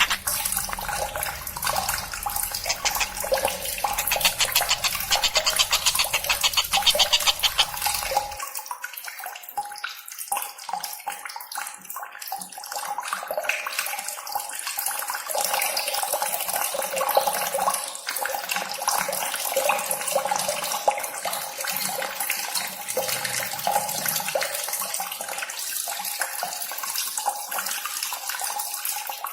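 Continuous splashing, running-water sound, full of rapid fine pulses, with the deepest part dropping away about eight seconds in.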